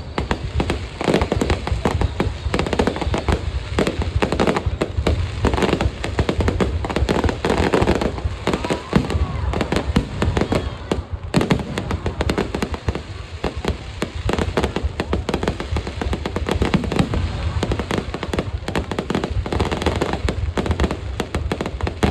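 Fireworks display: a dense, unbroken barrage of bangs and crackles from shells bursting overhead.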